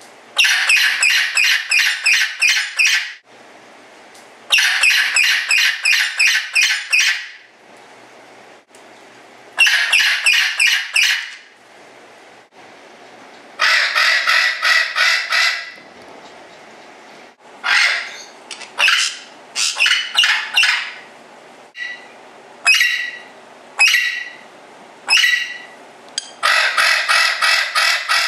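A bird calling loudly in bouts of rapid, harsh repeated notes, about four a second, each bout lasting two to three seconds with short pauses between. Later the bird gives single notes about once a second, and near the end a last rapid bout.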